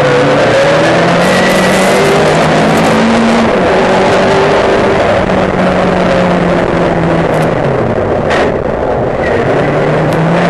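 Race car engine under hard load, heard from an onboard camera: its pitch climbs and drops back with gear changes, falls away about eight seconds in as the car slows for a corner, then climbs again.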